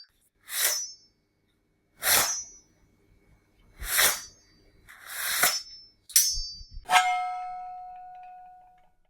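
Sound-effect machete blade drawn from its sheath four times, each a short metallic scrape with a high ring, then two quick blade swishes and a sharp metal strike about seven seconds in whose ring dies away over about two seconds.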